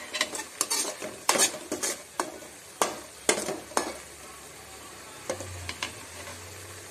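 Steel spatula scraping and clinking against a metal kadai as prawn masala is stirred, with the gravy sizzling underneath. A quick run of strokes fills the first four seconds, then two or three more come near the end.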